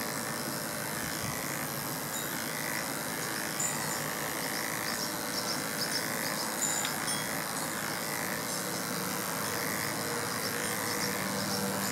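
Electric dog-grooming clippers running steadily as they are drawn down a small dog's side, cutting the coat.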